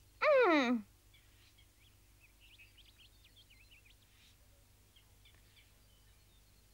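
A short vocal sound from a cartoon wolf character, sliding down in pitch with a waver, about a quarter-second in. After it, faint birds chirp in the background.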